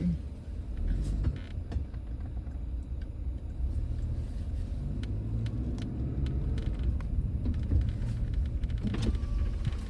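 Toyota RAV4 running, a steady low rumble heard from inside the car, with a few faint clicks.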